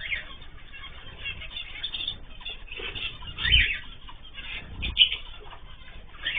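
Cage birds chirping in many short calls, with wing flapping and two low thumps near the middle.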